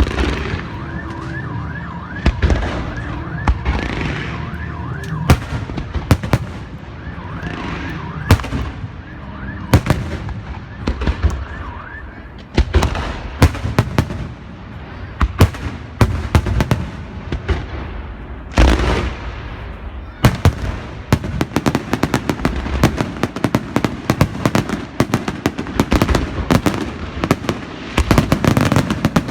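Beehive rockets and fireworks going off at close range: sharp bangs and crackling, with several whooshing launches. About two-thirds of the way through, the bangs thicken into a dense, almost unbroken crackling barrage. A wavering high whine sounds under the first dozen seconds or so.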